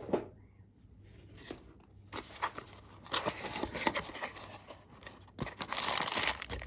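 Cardboard box being opened by hand, flaps scraping, with a plastic bag inside crinkling and rustling; irregular crackles and clicks that grow into the loudest rustling near the end.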